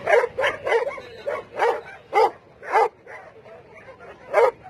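A dog barking in a run of short barks, about seven in quick succession, then a pause of over a second before one more bark near the end.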